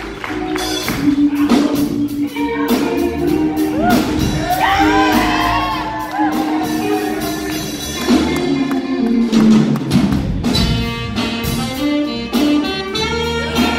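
Live horn band playing, saxophones and trombone in ensemble over a steady beat.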